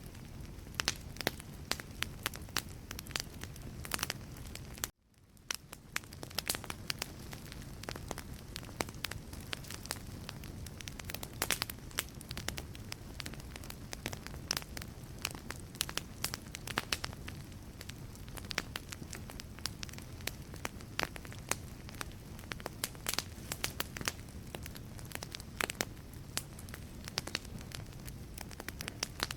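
Wood fire burning in a fireplace: logs crackling and popping irregularly over a steady low rumble and hiss. About five seconds in, the sound cuts out abruptly and fades back up within a second.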